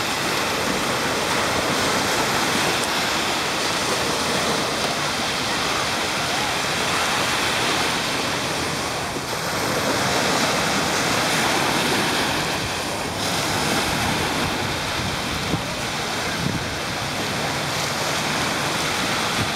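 Small sea waves breaking and washing up the sand at the water's edge, a steady surf rush that swells and eases every few seconds, with wind buffeting the microphone.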